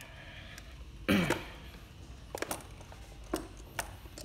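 A single short cough about a second in, the loudest sound here. After it come a few light, sharp metallic clicks as a screwdriver works on a brass clock movement.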